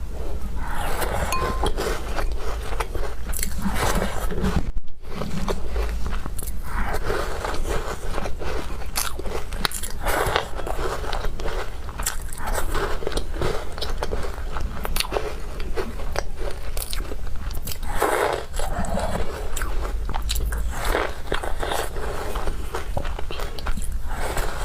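Close-miked biting and chewing of crumbly goji walnut shortbread cookies: a continuous run of small crunches and crumbling clicks, with louder bites every few seconds.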